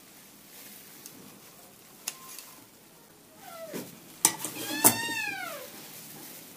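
A cat meowing twice about halfway through: first a short falling call, then a longer meow that rises and falls. Two sharp clacks come just before the second meow and at its start; these are the loudest sounds.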